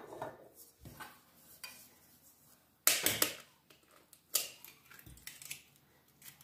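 Eggs being cracked into a glass mixing bowl: a few sharp cracks and clinks of shell, fork and glass, grouped about three seconds in and again around four and a half to five and a half seconds in.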